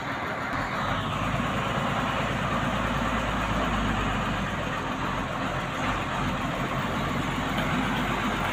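Heavy truck's diesel engine running steadily as the truck moves off slowly.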